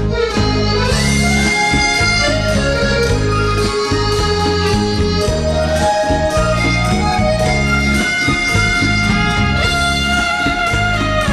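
Instrumental break of a karaoke backing track: a lead instrument plays a melody of long held notes over a steady, repeating bass line, with no singing.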